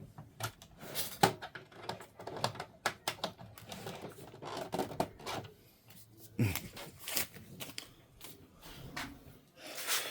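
Epson EcoTank inkjet printer at work, its mechanism making a string of irregular clicks and clatter, with a short rush of noise near the end.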